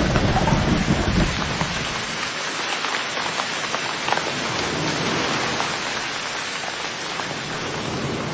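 Steady downpour of rain, a dense even hiss with scattered drop ticks, with a low rumble in the first second or so.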